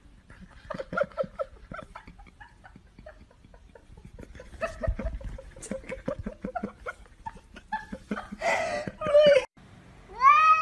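Faint clicks and short murmuring sounds, then a louder rasping cry about eight seconds in. Just before the end a cat starts a long, loud meow that rises in pitch.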